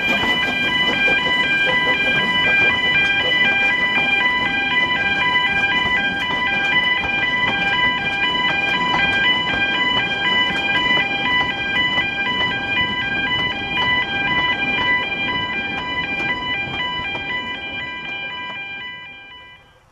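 Narrow-gauge train carriages rolling past on a curve: a steady rumble of wheels on rail under a high, pulsing wheel squeal. Both fade away near the end as the last carriage goes by.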